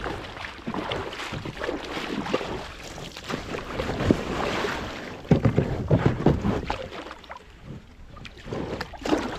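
Double-bladed kayak paddle strokes splashing in shallow water, with water sloshing around a sit-on-top kayak's hull, in an irregular rhythm. Wind buffets the microphone now and then.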